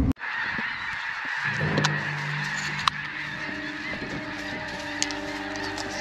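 A large flock of snow geese calling: a dense, unbroken din of high honking.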